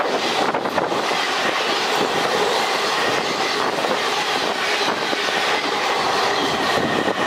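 Indian Railways express passenger coaches rushing past at speed: the steady noise of wheels running on the rails, with clattering over the rail joints.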